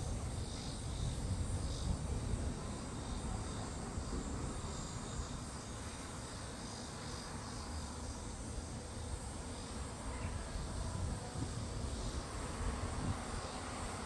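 Wind gusting over the microphone in an uneven low rumble, with insects chirping steadily in the background.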